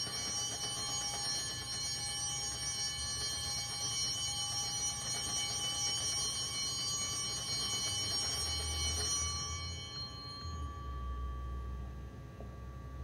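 Altar bell ringing for the elevation of the chalice at the consecration, a bright ring of many high tones that holds steady and then fades out about ten seconds in.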